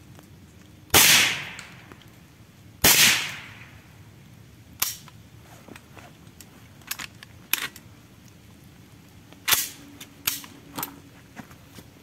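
Two shots from a Saiga-410 semi-automatic .410-bore shotgun, about two seconds apart, each with a short echoing tail. Several lighter sharp clicks and knocks follow.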